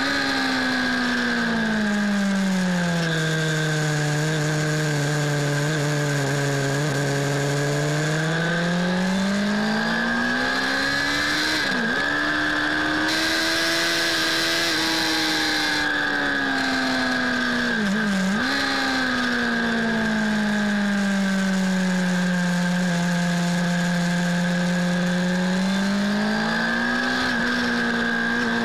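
Suzuki Bandit S 600's inline-four engine heard from on board, pitch slowly falling and rising as the revs change through the corners, with three brief sharp dips in pitch. Wind rush on the microphone, louder between about 13 and 16 seconds in.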